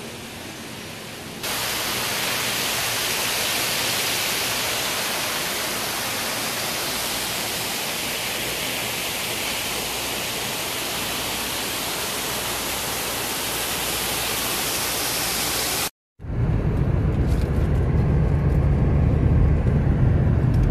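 A loud, steady, even hiss with no pitch or rhythm, which starts abruptly a second or two in. Near the end it cuts off and gives way to the low steady rumble of a car driving, heard from inside the cabin.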